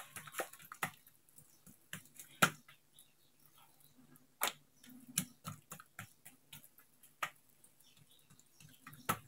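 Hands patting, stretching and folding oiled mlawi dough on a countertop: scattered soft taps and slaps, the loudest about two and a half and four and a half seconds in.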